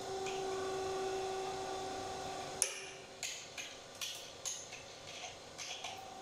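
Hydraulic lab press: a steady humming tone stops with one sharp click a little over two and a half seconds in, followed by a run of light metallic clicks and knocks.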